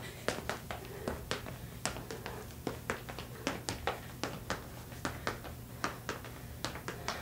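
Sneakers tapping on a hardwood parquet floor in quick, light footfalls, about three to four a second, from the pony step: a rapid side-to-side shuffle on the balls of the feet.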